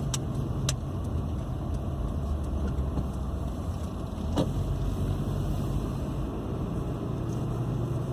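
A car's engine and road noise heard from inside the cabin, steady and low, as the car turns around in a U-turn. A couple of light clicks in the first second and another about four seconds in.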